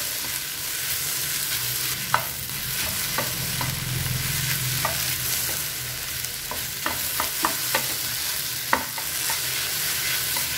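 Sliced okra and onion stir-frying in a hot pan on high flame: a steady sizzle, with a spatula scraping and clicking against the pan now and then, several clicks in quick succession about seven seconds in.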